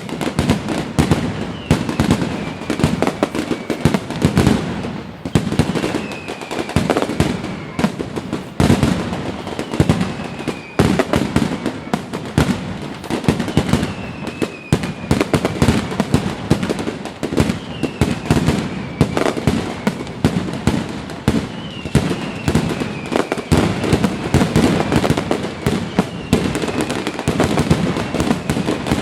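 Aerial fireworks display going off continuously, with dense bangs and crackling and faint falling whistles recurring every couple of seconds.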